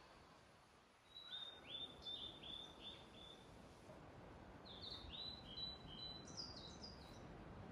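Faint birdsong in a forest: a small bird repeats a run of short, high, down-slurred chirps about a second in, then sings a second phrase that ends in higher notes, over a soft outdoor hiss.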